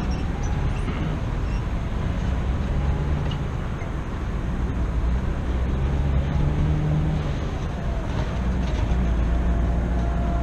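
Steady low rumble of vehicles, with road traffic passing a railway line.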